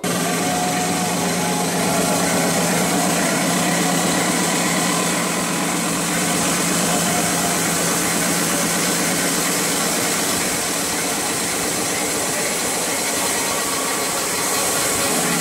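Loud, steady din of a packed concert hall as picked up by a phone's microphone: crowd and sound-system noise smeared together into a dense hiss-like wash with no clear tune or beat, starting abruptly at the cut.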